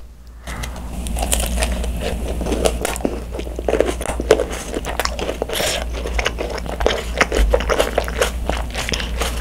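Close-miked biting and chewing of an overfilled macaron (ttungcaron), its meringue shells crunching in many quick small clicks that begin about half a second in.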